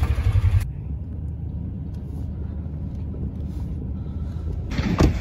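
Low, steady rumble of a vehicle running, heard from on board, louder for the first half-second and then quieter and even. A single sharp knock about five seconds in.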